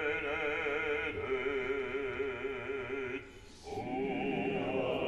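Operatic bass voice singing long held notes with a wide vibrato. The notes break off briefly about three seconds in, then a new note begins.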